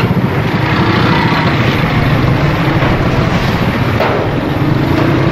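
Diesel engine of a truck-mounted crane running steadily, a low mechanical drone.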